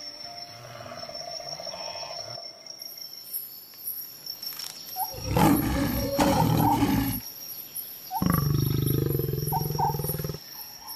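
Lions growling deeply over a kill: one rough growl of about two seconds some five seconds in, then a longer one from about eight to ten seconds.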